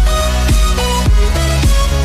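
Electronic dance background music: a heavy bass beat of about two kicks a second under stepping synth chords.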